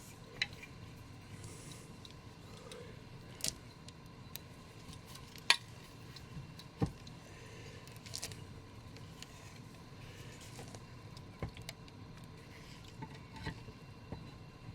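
Handling noise as a collectible statue's chair is fitted onto its base: a few scattered sharp clicks and taps of hard resin parts, with brief faint rustles of packaging in between.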